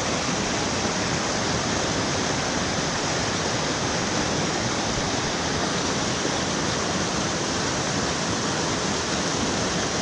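Whitewater rapids on the Boise River rushing steadily over rocks.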